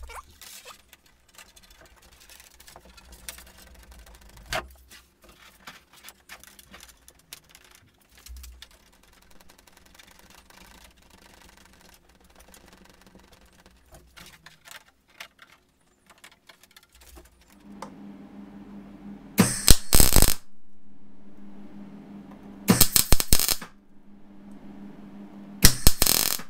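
Faint rustling and clicking of plastic hose being handled and fed through a kayak hull. Then an electric arc welder hums steadily, with three short crackling bursts of arc welding a few seconds apart near the end.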